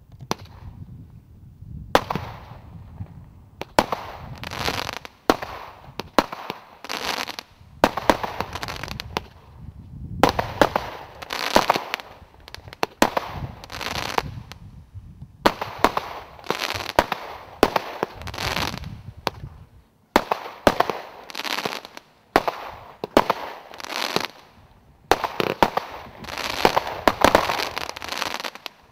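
Consumer category 3 firework cake (MLE Fireworks Supreme 12 'Magic') firing its shots one after another, each sharp bang followed by a burst of crackling stars. The first shot comes about two seconds in, and the rest follow every second or two.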